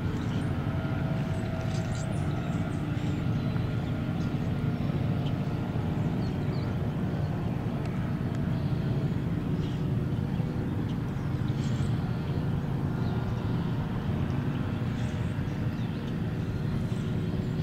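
Steady low drone of a distant engine, holding an even pitch and level throughout, with a few brief high bird chirps over it.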